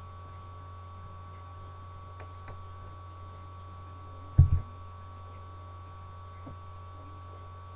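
Steady low electrical mains hum with a few faint steady higher tones, and one short low thump about four and a half seconds in.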